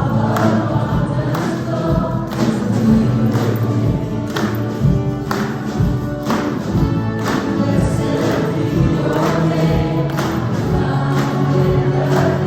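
A choir singing a gospel-style Christian song over a steady beat.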